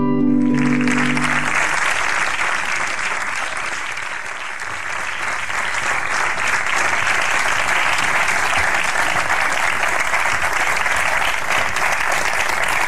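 Studio audience applauding steadily. The last chords of the theme music fade out in the first second and a half.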